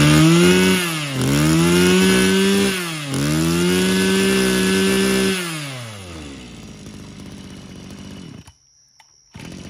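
Mitsubishi TL26 26cc two-stroke brush-cutter engine, just pull-started, running at high revs with two short dips, then winding down and dying out about five and a half seconds in. It stalls because the fuel has not yet fully come up after re-priming.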